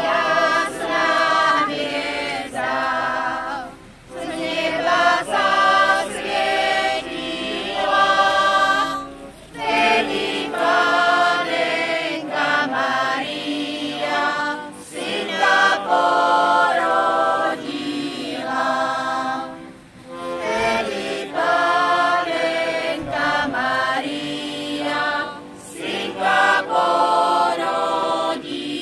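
Small folk choir singing a cappella, in phrases of about five seconds with short breaks for breath.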